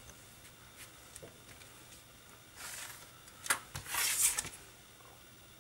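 A steel rule and pencil handled on a paper sheet over a cutting mat: a few light taps, then short dry scrapes of the rule being slid into place and a pencil line being drawn along it, the loudest a bit past halfway.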